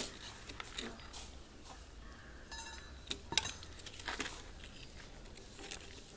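Scattered light clicks and knocks of PVC pipes and fittings being handled and set down on a concrete floor, the sharpest right at the start.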